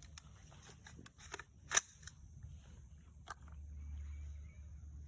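Airsoft gun fired with its regular trigger setup, without the FRD fitted: one sharp snap of a shot a little under two seconds in, with a few fainter mechanical clicks before and after.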